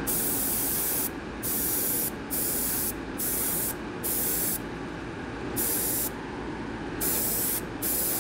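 Gravity-feed airbrush spraying yellow alcohol ink in about eight short hissing bursts as the trigger is pressed and released, each burst half a second to a second long, over steady background noise.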